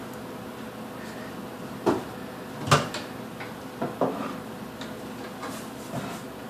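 Kitchen cupboard doors and items being handled while things are put away: a few separate knocks and clunks, the loudest about halfway through.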